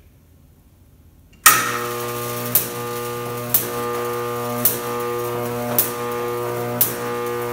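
High-voltage arc on a copper-rod Jacob's ladder, powered by a neon bombarder transformer switched on for its first test, buzzing loudly. The buzz starts suddenly about a second and a half in, and a sharp snap comes about once a second, five times, as the arc climbs, breaks and re-strikes.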